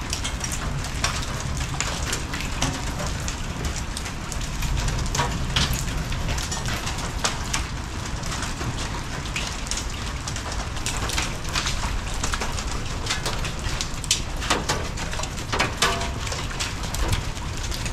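Marble-sized hail pelting wet pavement and the garage roof: a dense, irregular patter of sharp ticks over a steady hiss.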